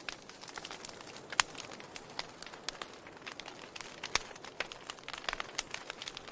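Burning wood crackling, with irregular sharp pops and snaps over a soft hiss, two louder pops about a second and a half in and about four seconds in.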